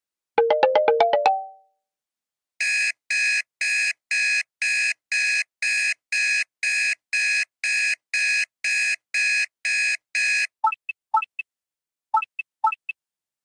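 Phone alert tones: a short quick run of chime notes, then an electronic alarm beeping evenly about twice a second for about eight seconds, then a few short two-note chirps near the end.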